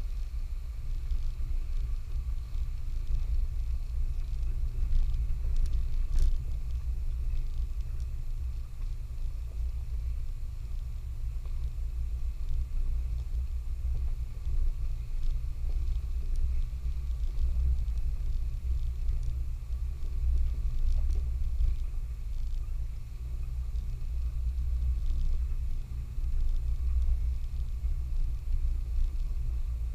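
Low, steady rumble of a 4x4 driving slowly along a rough off-road trail, with a sharp click about six seconds in.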